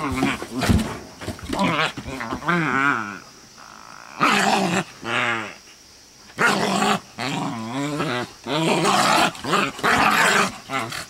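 Dogs growling in a rough play-fight between a Scottish terrier and a Bouvier des Flandres: a string of wavering growls, some raspier, with short pauses between them.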